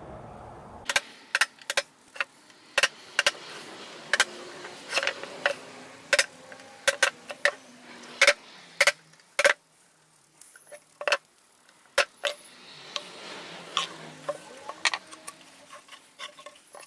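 Irregular sharp clicks and knocks of small hard objects being handled, one to three a second, with faint scraping between them.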